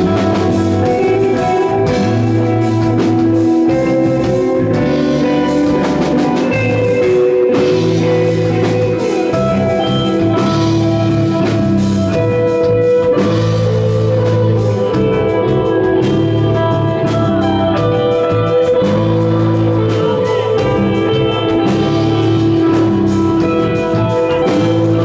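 A rock band playing live: electric guitar holding long sustained notes over a repeating bass line, with a drum kit keeping a steady beat, at a steady loud level throughout.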